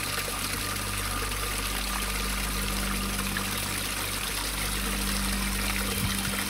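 A small waterfall splashing over rocks into a shallow pool: a steady trickling, rushing water sound.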